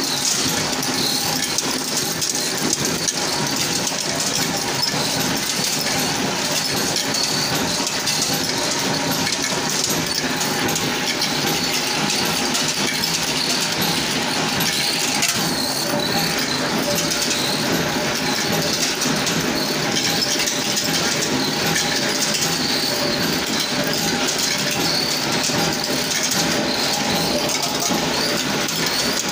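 Hex-nut-making machine running steadily, with a continuous, dense metallic clatter that does not let up.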